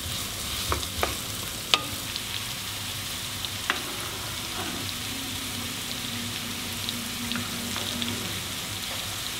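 Diced onion and garlic frying in sunflower oil in a frying pan, with a steady sizzle. A wooden spoon taps against the pan a few times in the first couple of seconds as the onion is stirred.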